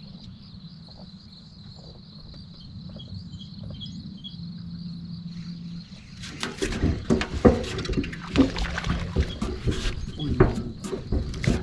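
Insects, such as crickets, chirring steadily in a pulsing high buzz over a low hum. About six seconds in, a run of loud, irregular knocks and rustles starts and keeps going.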